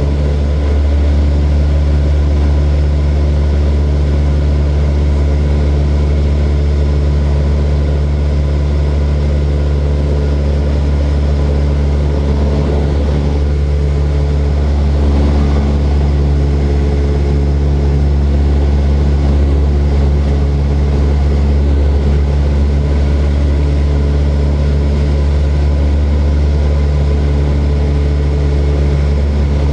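Small propeller airplane in flight, its engine and propeller giving a steady, unchanging drone with a strong low hum and many even overtones.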